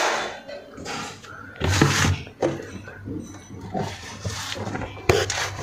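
Rummaging through belongings in a search: rustling and handling noises in irregular bursts, with small knocks and a sharp click a little after five seconds in.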